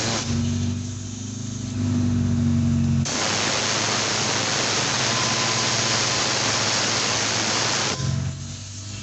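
A workshop tool's loud, even hiss, like a blast of air or spray, switching on and off: a motor hums with a steady, slightly rising tone for the first three seconds, the hiss runs for about five seconds, then cuts off near the end and the hum returns.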